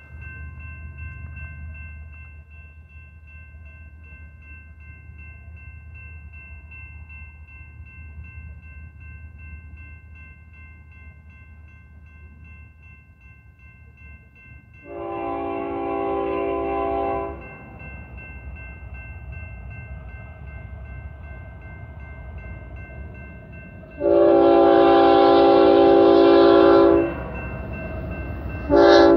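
Multi-chime air horn of a BNSF freight train led by a GE ES44C4 locomotive, sounding a grade-crossing warning over a low rumble. There is a blast of about two seconds about halfway through, a louder and longer one of about three seconds near the end, and a short toot at the very end, the opening of the long-long-short-long crossing pattern.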